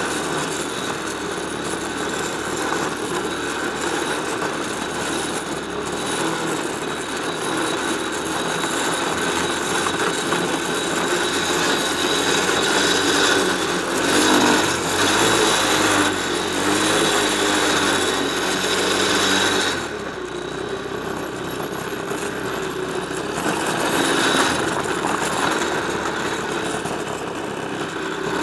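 Small 125 cc quad bike engine running under throttle while riding over snow, its revs rising and falling, with a brief easing off about twenty seconds in.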